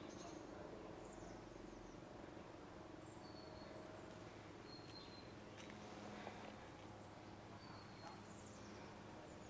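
Near silence: faint outdoor ambience with a few short, high bird chirps scattered through it.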